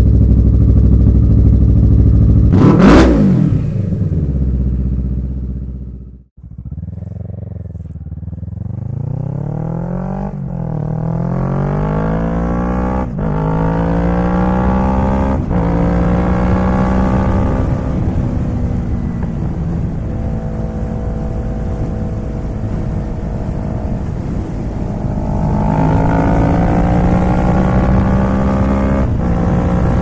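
Motorcycle engine under the opening, with a pass-by about three seconds in. After a brief cut to silence, the Kawasaki Z650's parallel-twin engine accelerates up through the gears, revs climbing and dropping at shifts about ten, thirteen and fifteen seconds in, then holds a steady cruise before pulling harder again near the end.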